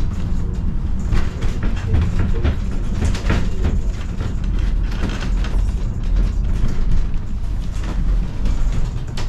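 Wooden funicular railway car of the Duquesne Incline rumbling and rattling as it rides up its rails, with irregular clacks over the steady low rumble.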